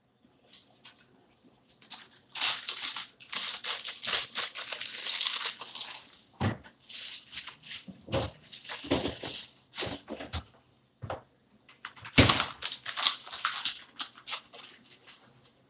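Plastic food packaging crinkling and rustling as it is handled, in two long spells, with a few dull knocks of things being set down in between.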